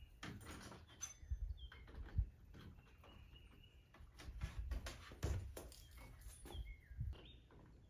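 Scattered clicks and knocks of deadbolt lock hardware being handled and fitted into a door, with a few short bird chirps in the background.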